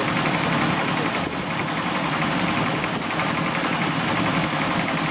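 Engine of a compact drilling rig running steadily with a low, even vibration.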